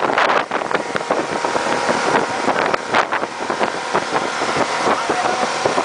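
Towing motorboat running steadily at speed, with the rush and splash of its churning wake and wind buffeting the microphone in a few gusts near the start.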